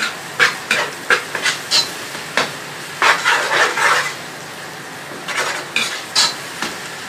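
A spoon scraping and clinking against a karahi in irregular strokes, stirring onions and garlic-ginger paste as they fry in ghee, with a steady sizzle underneath; a denser spell of scraping comes about three seconds in.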